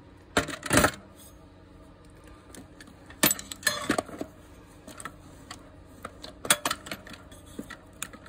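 Hex wrenches and other small metal tools clinking and rattling against a steel toolbox as they are put into it: a few short clusters of clatter, about half a second in, around three to four seconds in, and around six and a half seconds in.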